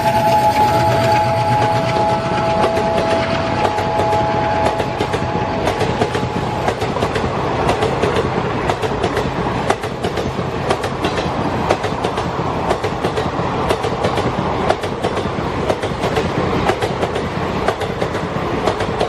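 Recorded sound of a full-size train: a two-note horn held for the first five or six seconds, then the train running with the clickety-clack of its wheels over rail joints.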